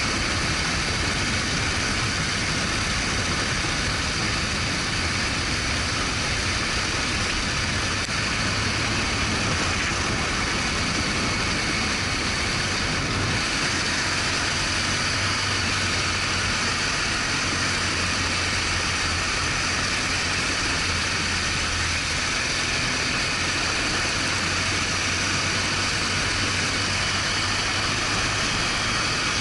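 BMW R1200GS Adventure's boxer twin engine running steadily under way, with an even hiss of wind and road noise over it.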